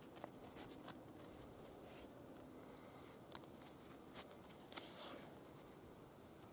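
Faint, scattered crinkles and rustles of a plastic bag of soil being handled around a tree branch, with a few soft clicks.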